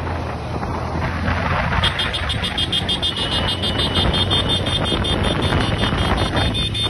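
Traffic noise heard from a moving motorcycle following a lorry: engine, tyre and wind noise. A rapid, evenly pulsing high-pitched tone joins in about two seconds in.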